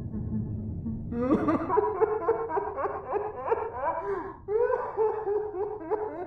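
A cartoon character laughing in a quick run of 'ha ha' pulses. The laugh starts about a second in, pauses briefly, then goes on.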